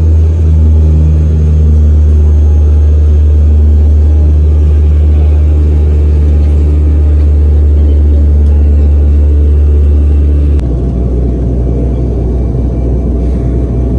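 Loud, steady low rumble that changes abruptly and drops a little about ten and a half seconds in.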